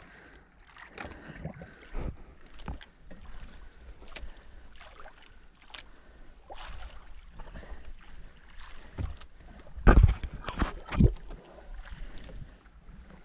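Irregular knocks and taps aboard a small outrigger fishing boat as a handline is worked over the side, with two louder thumps about a second apart near the end.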